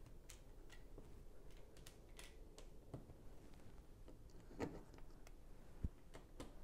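Faint scattered clicks of small plastic Lego tiles being handled and pressed onto a plate, with a couple of slightly sharper clicks in the second half.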